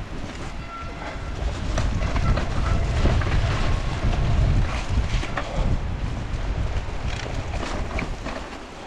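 Hardtail mountain bike rattling down a rooty trail: low rumble of tyres on dirt with scattered clattering of the chain and frame over roots, plus wind on the microphone. Loudest in the middle, easing off near the end.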